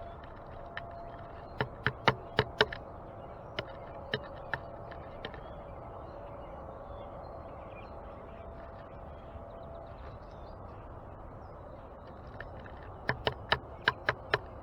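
Birds pecking at a feeder: sharp taps in quick runs of four to six, a burst early on and another near the end, over a faint steady hum and faint distant chirping.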